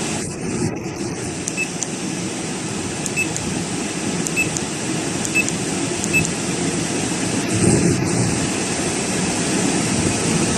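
A 12-volt parking air conditioner running steadily in automatic mode with its fan on the third speed, giving a steady low whooshing hum. It is drawing about 78 A.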